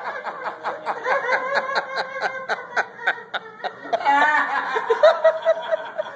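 Unrestrained laughing: a rapid run of short "ha-ha" pulses, about five a second, that gives way about four seconds in to longer drawn-out laughing sounds.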